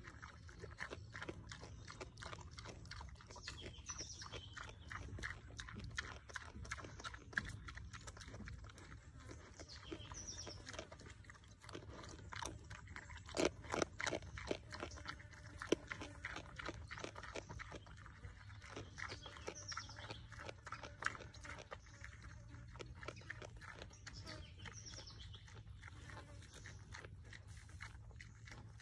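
A wild pig eating from a pile of bait on the ground: a steady run of crunching and chewing clicks, heaviest around the middle.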